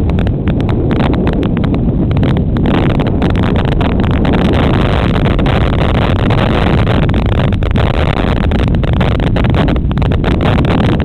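Loud, steady, static-like rushing noise from a cheap helmet-mounted camera's microphone while cycling: wind and riding noise buffeting the mic, which drowns out everything else.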